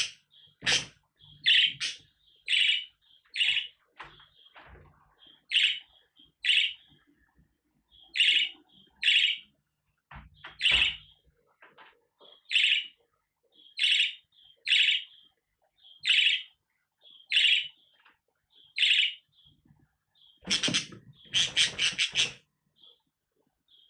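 Budgerigar giving short chirping calls, about one a second and often in pairs. Near the end comes a louder, longer burst of sound.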